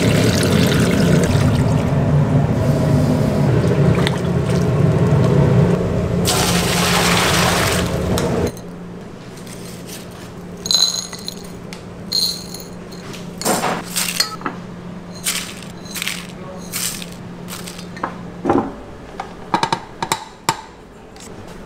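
A pot of meat and meatballs in dark braising sauce bubbling at a simmer, with a steady low hum, for about the first eight seconds. Then it cuts to quieter handling: a string of light clicks and taps of dried bay leaves and spices against china plates and bowls.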